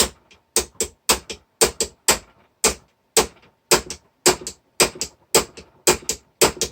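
Small hammer tapping a pin punch to drive a steel pin out of the air rifle's plastic housing: sharp metallic taps about two to three a second, often in quick pairs.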